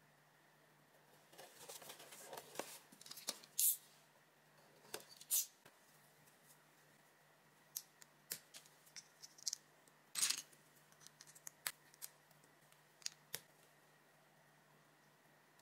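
Small plastic LEGO bricks being handled and pressed together: irregular sharp clicks and short light rattles, one after another with quiet gaps, ending a couple of seconds before the close.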